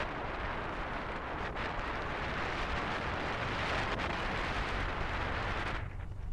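Wind rushing over the microphone of a moving motorcycle, with the Royal Enfield Himalayan's single-cylinder engine running underneath. The wind noise drops away suddenly near the end.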